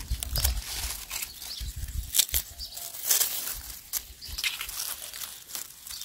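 Leaves and stems of green onions and parsley rustling and crackling as the herbs are picked and gathered by hand. A low rumble runs under it for about the first two seconds.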